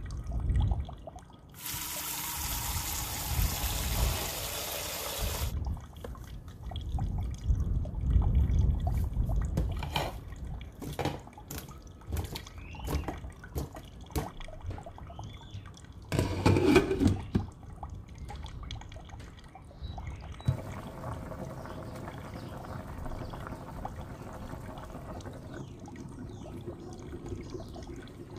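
Tap water running into a pot in a stainless-steel sink, then splashing and knocks as corn cobs are handled in the water, and toward the end a steady sound of water boiling under a glass pot lid.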